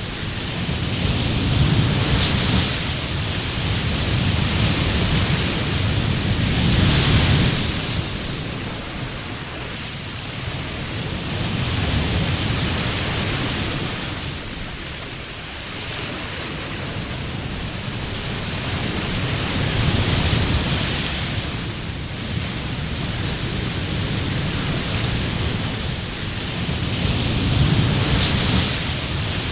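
Surf on a sandy beach: continuous wave noise that swells as each wave breaks and eases between, every several seconds.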